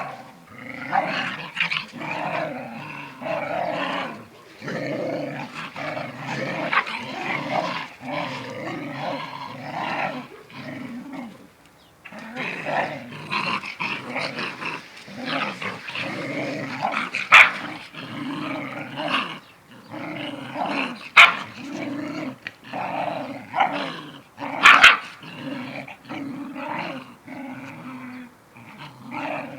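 A mother dog and her puppy growling at each other in a play-fight, a rough, pulsing growl that keeps going with only a short break. Three short, sharp yaps stand out later on.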